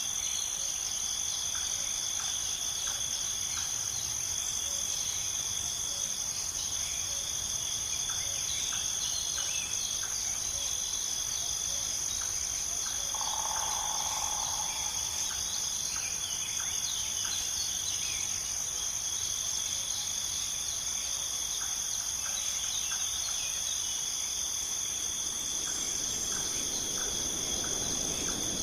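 Steady chorus of insects trilling continuously at a high pitch, with short faint bird chirps scattered through it and one brief lower call about halfway through.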